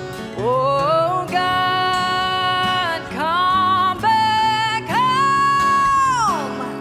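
A song: a singer holds a series of long notes on "oh", sliding up into the first and gliding down at the end of the last, over guitar accompaniment.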